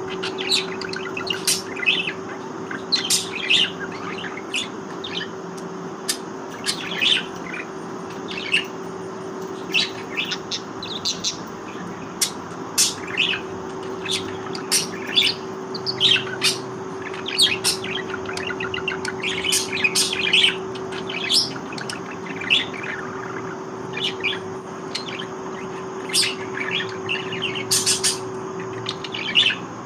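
Budgerigars chirping: many short, high calls in quick, irregular succession over a steady low hum.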